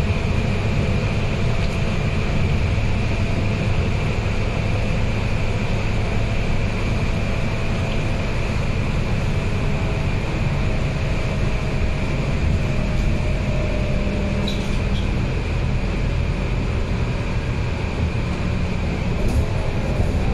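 Cabin noise inside a Scania K230UB single-deck bus on the move: its rear-mounted five-cylinder diesel engine and drivetrain run steadily under a low hum of road and tyre noise. A faint tone in the drivetrain slides slowly down about halfway through.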